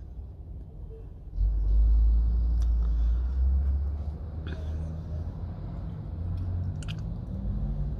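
Road traffic passing close by: car engines and tyres make a low rumble that swells about a second and a half in and then eases off but goes on.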